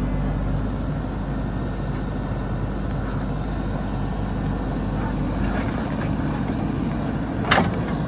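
JCB 3DX backhoe loader's diesel engine running steadily under digging load, with a single sharp knock about seven and a half seconds in.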